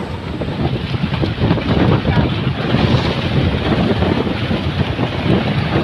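Wind buffeting the microphone aboard a fishing boat at sea, with a steady rush of water and boat noise underneath.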